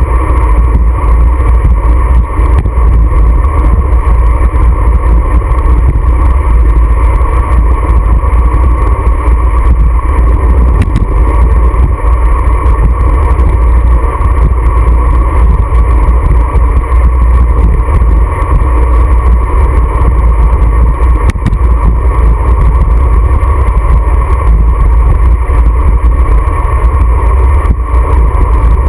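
Heavy wind buffeting on a GoPro's microphone as a road bike rides at speed: a loud, steady low rumble.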